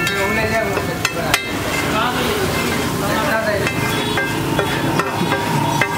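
Steel spatula scraping and clinking on a flat iron griddle (tawa) while a spiced scrambled-egg mixture sizzles, with a few sharp metal knocks.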